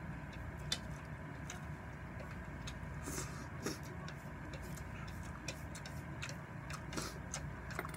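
Wooden chopsticks clicking and scraping against a ceramic plate as the last noodles are gathered up: a handful of scattered short clicks over a steady low hum.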